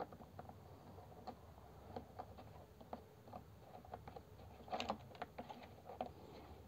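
Faint plastic clicks and taps as the oil filler cap on a Parkside PKS 2200 A1 electric chainsaw's oil tank is turned and handled, with a short louder cluster of clicks about five seconds in.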